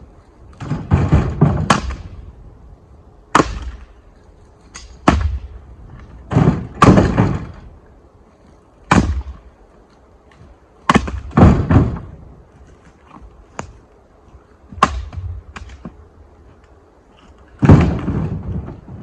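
Split firewood being tossed onto a pickup truck, a series of heavy wooden thuds and clattering knocks as pieces land and strike one another. They come singly or in quick bunches every second or two.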